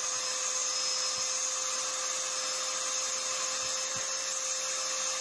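Opolar electric air duster running at a steady speed, a constant motor whine over a rush of air, blowing dust out of a phone's earphone jack.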